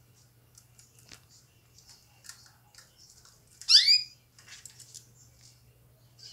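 Caged canaries making soft high chirps and small ticks throughout, with one loud call of quickly rising notes a little past the middle.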